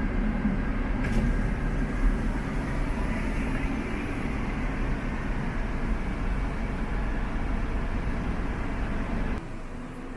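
Steady low rumble of a moving vehicle's engine and road noise, which drops suddenly to quieter indoor room sound about nine seconds in.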